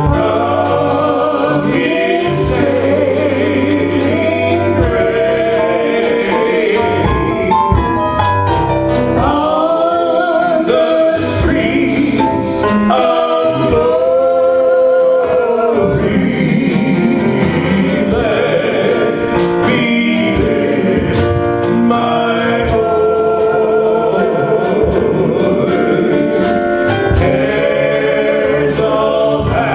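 Gospel music: a choir singing with instrumental accompaniment and held low bass notes.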